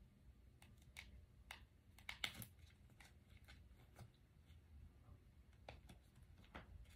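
Near silence with faint scattered clicks and soft rustles of cards being handled, a slightly louder cluster about two seconds in.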